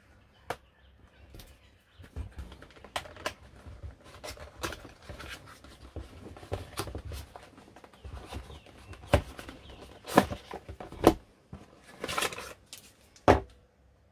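A cardboard product box being opened and its contents handled: scattered clicks and sharp knocks as items are taken out and set down on the table, with a short rustle of packaging about twelve seconds in.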